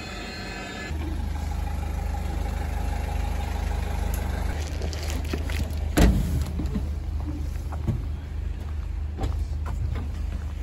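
Low steady rumble of the open-air railway cart's engine running at standstill, getting louder about a second in. There is one loud knock about six seconds in, and a few light clicks and taps follow.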